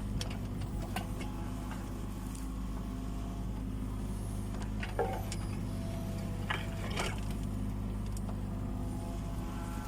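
Kubota U20 mini excavator's diesel engine running steadily, with a few sharp clanks, the loudest about five and seven seconds in.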